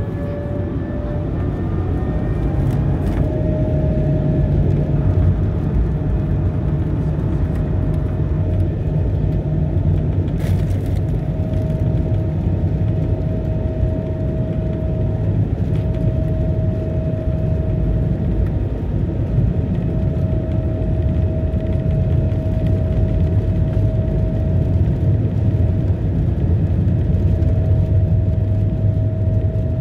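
Airbus A220-100's Pratt & Whitney PW1500G geared turbofan engines at taxi power, heard from inside the cabin over the wing: a steady low rumble with a whining tone that rises slightly a few seconds in and then holds.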